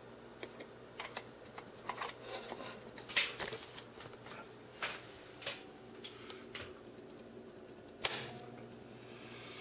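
Irregular metallic clicks and small knocks as a guitar-cable jack plug is handled and pushed into the crystal radio's socket, then one sharp, louder click about eight seconds in as a toggle switch on a Marshall JMP 2203 guitar amp head is flipped to power it up.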